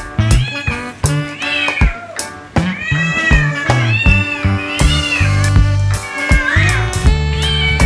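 Cat meows rising and falling, about one a second, over background music with a bass line and a steady beat.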